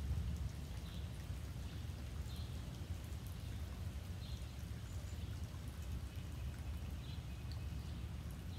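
Outdoor ambience: a steady low rumble with a short high chirp every second or two, from a bird calling repeatedly.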